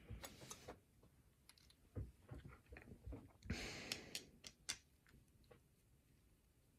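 Faint scattered clicks and a short scrape about three and a half seconds in, from a pin-tumbler challenge lock and small tools being handled.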